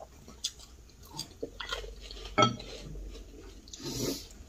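Chopsticks and spoons clinking against ceramic bowls during a meal, with scattered light clicks and one sharper clink about halfway through. Near the end there is a short slurp of noodles.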